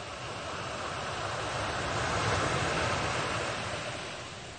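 Rushing noise of an ocean wave surging in, swelling to a peak about halfway through and then fading away.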